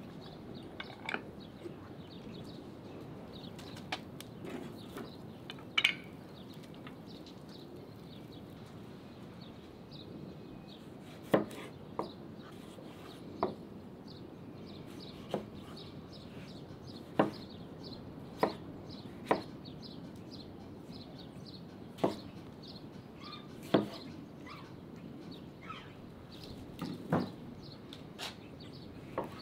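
Single chopping blows on wood, a dozen or so spaced one to three seconds apart, with a pause of several seconds early on, over a steady background hiss.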